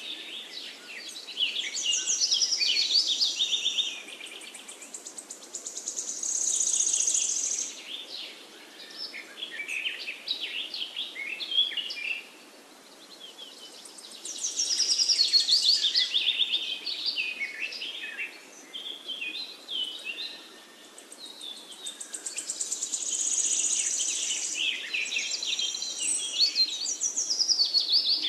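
Birds singing: rapid, varied chirps and high trills in phrases of a few seconds, with brief quieter pauses between them.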